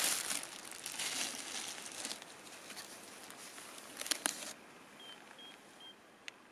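Crinkling, rustling noise with a few sharp clicks about four seconds in, then it drops off suddenly to a much quieter background with three short high peeps and a single click.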